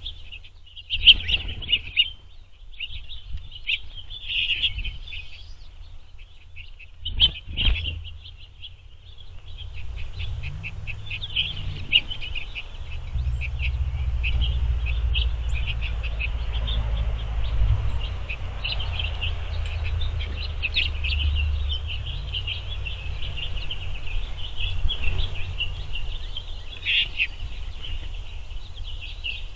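A flock of small finches twittering and chirping without pause, with a few sharp knocks in the first eight seconds. A low steady rumble sets in about ten seconds in.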